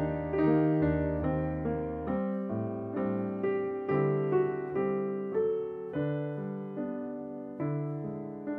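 Slow, gentle piano music: sustained chords and a soft melody struck at an even, unhurried pace.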